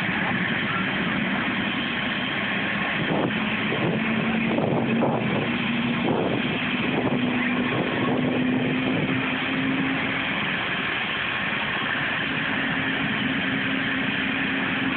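Light turbine helicopter running on the ground with its two-blade main rotor turning, a steady engine-and-rotor rush with a low steady tone.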